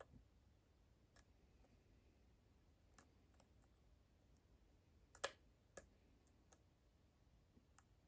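Faint, scattered metallic clicks of a steel hook pick and tension wrench working the pins of a brass euro cylinder lock, the loudest about five seconds in.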